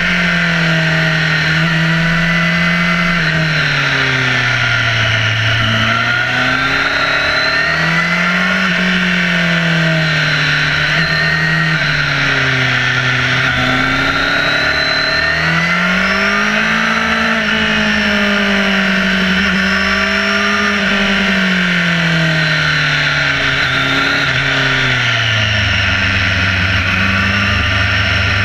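Motorcycle engine rising and falling in pitch as the throttle is opened and closed through a series of bends, over steady wind and road hiss. Near the end the engine settles to a lower, steady note.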